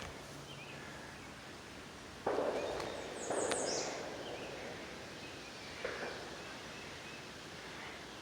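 Distant gunshots: three shots, the first and loudest about two seconds in, a second about a second later and a fainter one near six seconds in, each followed by a rolling echo through the woods.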